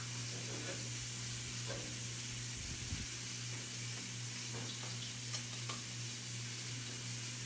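Brined fish (daing) frying in pomace olive oil in a non-stick pan: a steady sizzle, with a few light clicks scattered through it, over a steady low hum.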